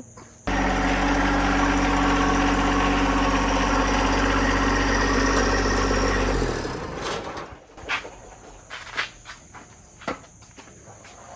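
WoodMizer LX55 bandsaw sawmill running steadily at full speed, then shut off and winding down about six and a half seconds in. A few scattered knocks and clunks follow.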